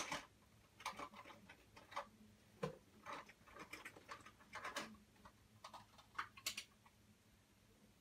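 Faint, irregular clicks and taps, some in quick clusters, thinning out near the end, over a faint steady low hum.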